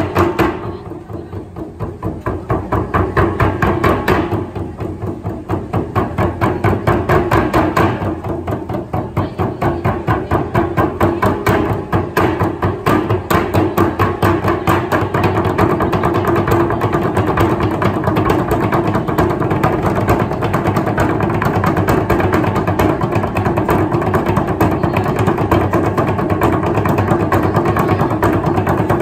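A group drumming with sticks on steel oil-barrel drums topped with water, in a fast, dense, steady rhythm. The playing eases off briefly a few times in the first several seconds, then runs on as an unbroken stream of rapid strikes.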